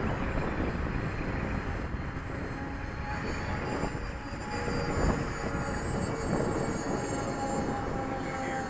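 Freewing RC jet's electric ducted fan whining as it flies past, the high whine drifting up and down in pitch, over a steady rumble of wind on the microphone.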